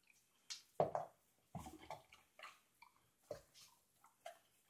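A dog chewing a treat, with irregular short wet smacks every half second or so.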